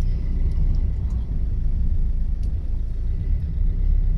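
Low steady rumble of a car driving slowly through floodwater, heard from inside its cabin.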